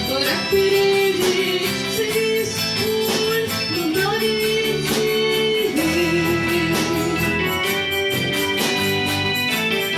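Rock band playing live: electric guitars over a steady beat, with a long held sung melody line.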